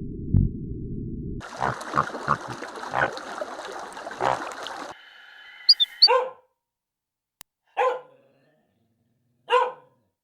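A dog barking single short barks, three times about a second and a half apart in the second half. These follow a low rumble and then a noisy stretch with several thumps, apparently separate clips.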